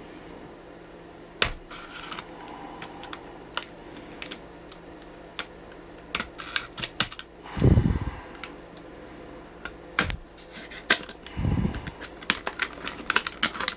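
A brass padlock being worked out of its plastic retail package: scattered sharp clicks and crackles of handled plastic, with dull thumps about 8 and 11½ seconds in.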